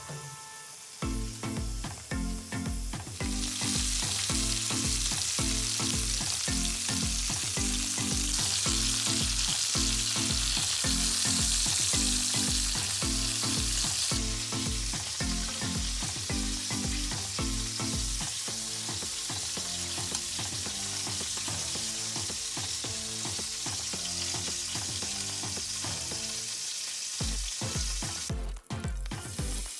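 Food sizzling as it fries in a pan, with a steady high hiss that is loudest for the first half, over background music with a regular beat.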